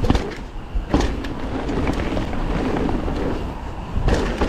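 Mountain bike riding down a dirt trail: a steady rush of wind on the rider's camera microphone with tyre and rattling noise, and sharp thumps from bumps at the start, about a second in and near the end.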